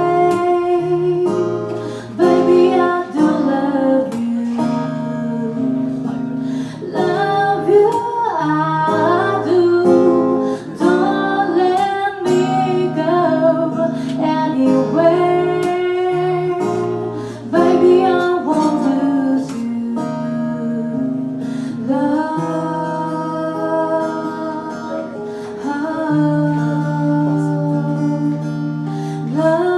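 A live acoustic pop song: a woman singing over guitar accompaniment.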